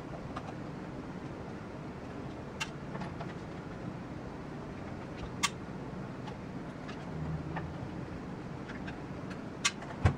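Small sharp clicks of a precision screwdriver and tiny Torx 8 screws against the plastic cyclone housing of a Dyson vacuum canister as the screws are backed out. There are a handful of clicks a few seconds apart, the loudest near the end, over a steady low room hum.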